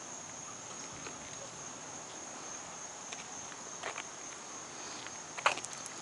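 Steady high-pitched insect chorus, crickets or similar, with a couple of footsteps on dirt about four seconds in and near the end.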